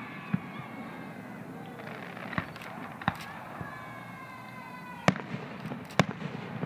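Aerial firework shells bursting in sharp bangs, about five of them, with the loudest two about five and six seconds in.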